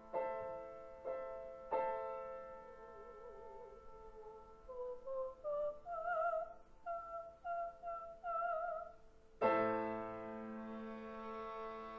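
Classical-style piano music: a few struck chords, then a high melody with vibrato climbing step by step in short phrases, and a loud chord ringing on near the end.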